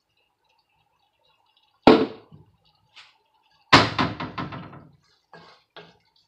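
Wooden spoon knocking against a large pan while stirring ground beef in sauce. A sharp knock comes about two seconds in, then a loud knock followed by a quick fading run of smaller knocks, and two light taps near the end.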